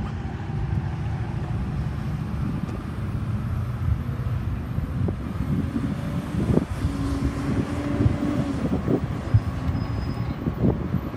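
Road traffic rumbling steadily, with a few short knocks and rustles in the second half.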